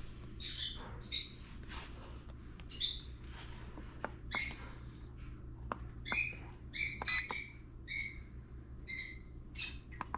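A bird giving short chirping, squawking calls, about a dozen of them at uneven intervals, over a steady low hum, with a few faint clicks.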